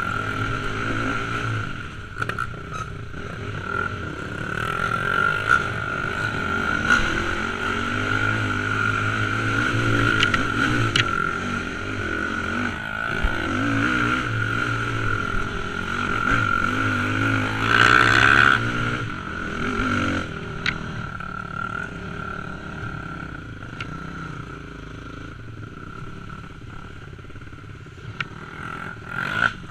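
Dirt bike engine running as it is ridden, rising and falling with the throttle, with stones clattering under the tyres and a steady high whine throughout. About two-thirds of the way through there is a brief louder burst.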